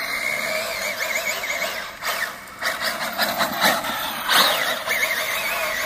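RC car's 1250 kV sensored brushless motor and drivetrain whining as it drives, the pitch wavering up and down with the throttle and a few short louder surges, over the hiss of tyres on wet asphalt.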